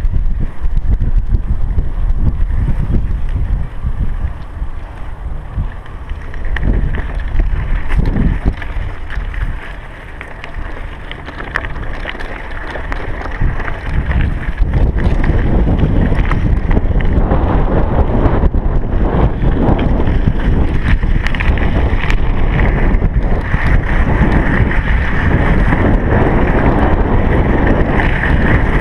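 Wind buffeting the microphone of a chest-mounted GoPro on a moving bicycle, a heavy rumble mixed with tyre and road noise. It eases off for a few seconds early on and comes back stronger from about halfway.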